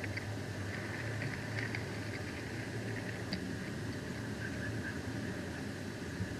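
Steady background hiss and low hum, with faint scattered ticks and one short sharp click about three seconds in.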